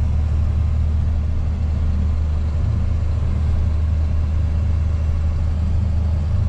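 Rollback tow truck's engine running steadily with road noise while driving, heard from inside the cab as an even low drone.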